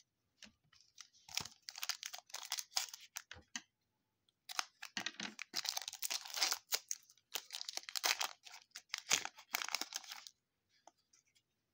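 A Donruss Elite football card pack's wrapper crinkling and tearing as it is opened by hand, in three stretches of rustling that stop about ten seconds in.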